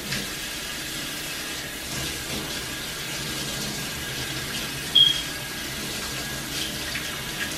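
Kitchen sink tap running steadily, water splashing into the sink as hands move under the stream. A brief high squeak about five seconds in is the loudest moment.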